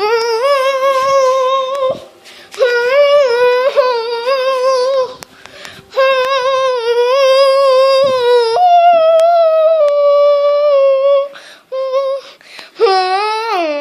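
High-pitched wordless singing: long held notes with a slight wobble, in phrases broken by short pauses, stepping up in pitch partway through.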